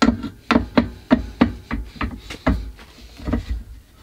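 Metal work table and tilt mechanism of a 2x72 belt grinder being handled and set to an angle: a dozen or so irregular knocks and clicks as the parts are moved and locked.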